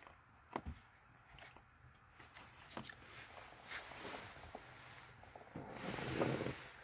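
Faint handling and rustling noise with a few light clicks and knocks, growing into a louder rustle near the end.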